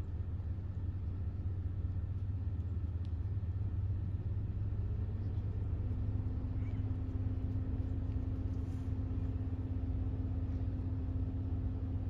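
Low steady rumble of a running vehicle engine; about five seconds in a hum joins it, rising slightly and then holding steady.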